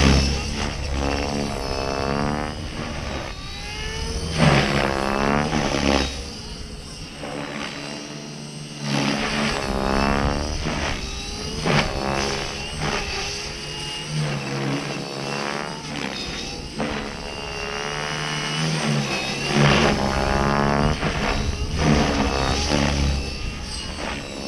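Electric Align T-Rex 550E DFC RC helicopter flying aerobatics: its 550 mm main rotor blades and three-blade tail rotor whoosh with a pitched whine that swoops up and down every second or two as the blade loading changes, with louder surges every few seconds.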